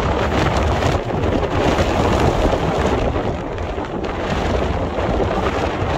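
Wind buffeting the microphone: a loud, steady rumbling rush.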